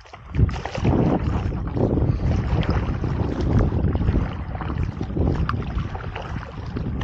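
Wind rumbling on the microphone over water splashing and sloshing around a stand-up paddleboard being paddled, the noise swelling roughly once a second.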